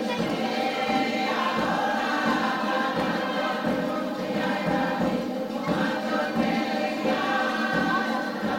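A group of many voices singing together in chorus, a sustained, steady choral song from a Cook Islands group.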